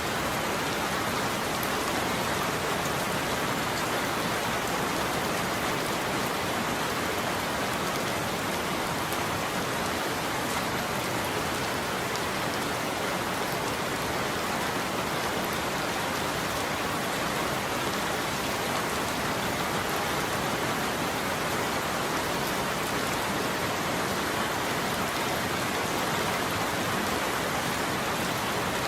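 Steady heavy rain falling on a surface, a dense even hiss with no thunder.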